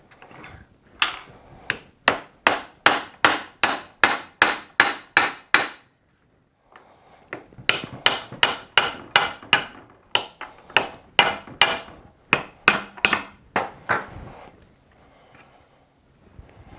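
Hammer blows tapping on a Subaru TY752 manual transmission case to split the case halves apart. They come as steady, rapid strikes about three a second, in two runs with a brief break about six seconds in.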